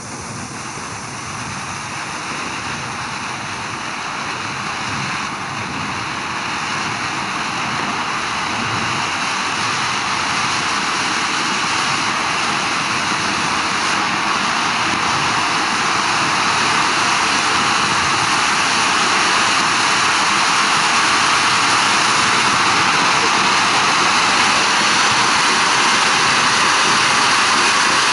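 Xplode Vezuv ground fountain firework burning: a steady rushing hiss of spraying sparks that grows gradually louder over the first half and then holds as the fountain builds to full height.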